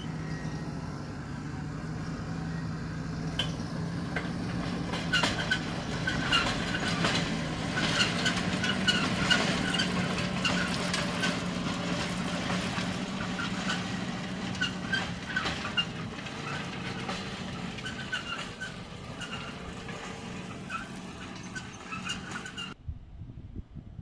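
Fendt 828 Vario tractor's six-cylinder diesel running steadily under load as it pulls a Horsch Terrano cultivator past, loudest in the first half and then receding. Frequent metallic clicks, rattles and squeaks from the trailed cultivator sound over the engine, and everything cuts off abruptly near the end.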